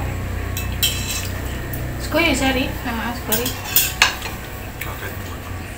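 Spoons scraping and clinking against bowls as people eat, with a few sharp clinks, over a low steady hum and faint murmured voices.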